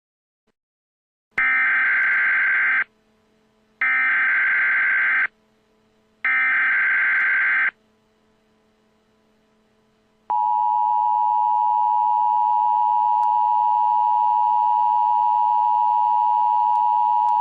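Three bursts of Emergency Alert System SAME header data, a harsh digital warble, each about a second and a half long with short gaps between. About ten seconds in, the steady two-tone EAS attention signal starts and holds: the alert tone that announces a new emergency message.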